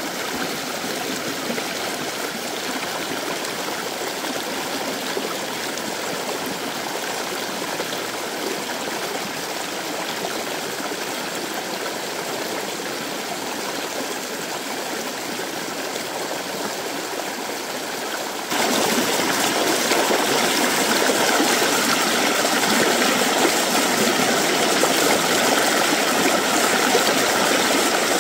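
A shallow stream running fast over rocks: a steady rush and splash of water. It gets abruptly louder and brighter about two-thirds of the way through.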